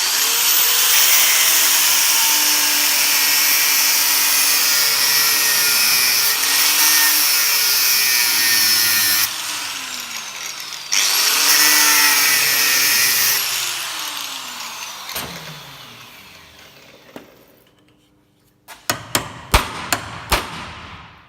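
Angle grinder cutting through the old wheel-bearing race left on the hub: steady grinding that breaks off briefly about nine seconds in, starts again, then winds down and stops. Near the end comes a quick run of sharp metal knocks.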